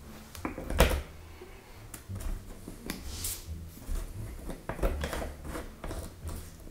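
Quiet handling noises of plastic bottles and a screw cap: scattered light clicks and knocks, the sharpest a single click just under a second in, with a brief hiss about three seconds in.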